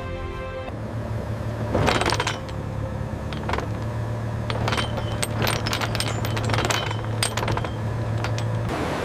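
A steady low hum with many sharp metallic clinks and jingles over it, the loudest about two seconds in. Shortly before, a music chord stops.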